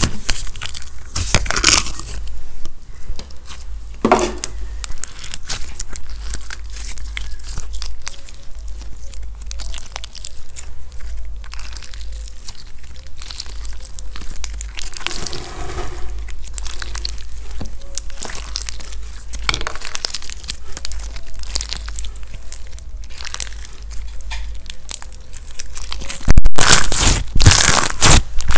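Hands kneading, stretching and squeezing thick white slime, making a dense run of small sticky clicks and crackles. It gets much louder near the end as the slime is squeezed into a ball in the fists.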